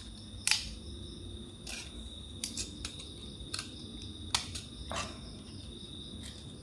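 Knife blade scraping against the thin enamelled copper winding wire of a motorcycle stator coil to strip its enamel insulation. It makes about eight short, sharp scrapes and clicks at uneven intervals, the loudest about half a second in.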